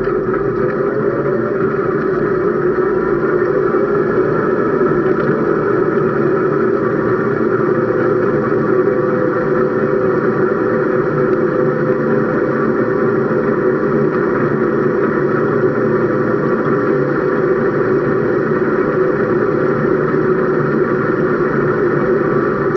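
Case IH combine harvester running steadily under load, its engine and threshing machinery making a constant loud drone.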